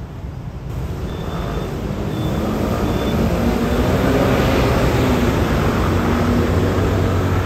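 City bus pulling away and driving past, its engine rising in level over the first few seconds, with motor scooters passing close by in the loudest part. A faint high tone sounds briefly early on.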